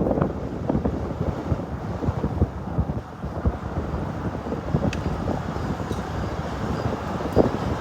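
Wind buffeting the microphone: a gusty, fluttering low rumble.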